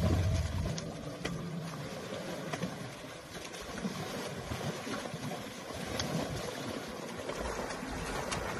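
Shallow river water splashing and sloshing as a baby elephant rolls and thrashes at the edge while adult elephants wade beside it, with faint scattered ticks of spray. A low rumble fades out in the first second.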